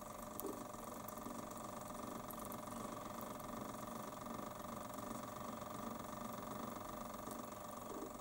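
Milling machine spindle running with a faint, steady whine while power-tapping an M5 thread into an aluminium pulley.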